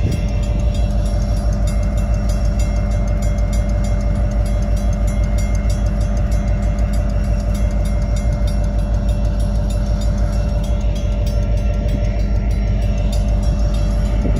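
Union Pacific freight train of covered hopper cars with a rear distributed-power locomotive passing through a grade crossing: a steady heavy rumble of wheels on rail, with a constant pitched hum held throughout.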